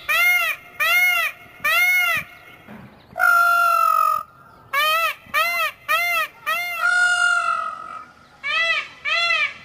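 Indian peafowl calling: a run of short notes that rise and fall, about two a second, broken twice by a longer drawn-out note.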